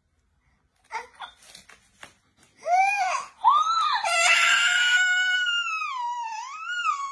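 Baby bursting into tears: a few short whimpers about a second in, then a short rising-and-falling wail and a long, loud cry that slowly falls in pitch and wavers near the end.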